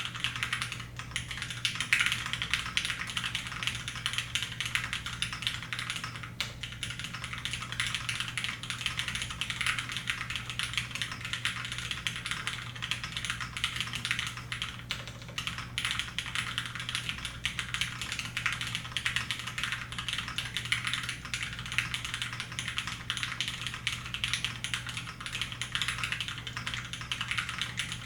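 Continuous fast typing on a Compact Ergo mechanical keyboard with lubed and filmed Cherry MX Black linear switches, a polycarbonate plate and GMK keycaps: a steady stream of key strikes with no switch clicks.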